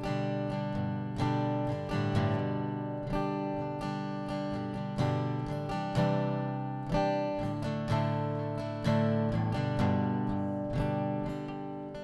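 Quiet instrumental music: an acoustic guitar strumming slow chords, one strum about every second or so, each left to ring out.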